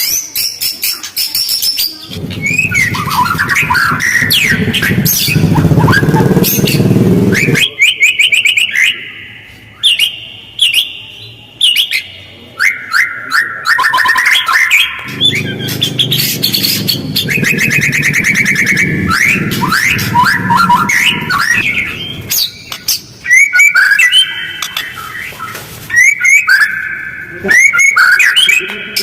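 White-rumped shama singing fast, rough song with short pauses: quick rising and falling whistles mixed with harsh chattering notes. A low noisy rumble runs under the song twice, for several seconds each time.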